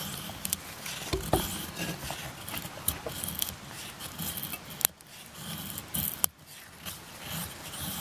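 Dead wood being cut and broken up for firewood: irregular scraping strokes with sharp cracks and snaps.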